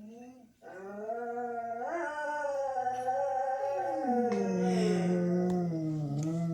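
Dog howling: after a short break about half a second in, one long, wavering howl rises in pitch near two seconds, drops lower around four seconds and holds until near the end.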